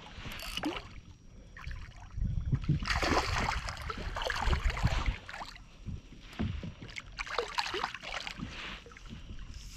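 A hooked bass being fought and reeled in beside a kayak: water splashing and rod-and-reel handling noise, with wind buffeting the microphone. The splashing noise is loudest from about two to five seconds in, and picks up again later.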